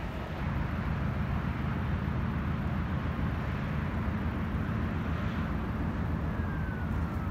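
Steady low rumble of vehicle engines and traffic, with a faint whine falling in pitch from about six seconds in.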